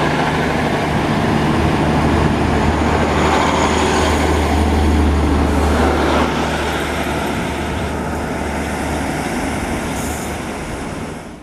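Two coupled Class 150 Sprinter diesel multiple units pulling out along the platform, their underfloor diesel engines droning steadily under power over the rumble of wheels on rail. The sound eases off in the second half as the train draws away.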